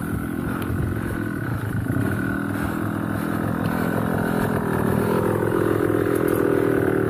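Motorcycle engine running under way on a trail ride, its pitch stepping up about two seconds in and again near five seconds as the revs rise.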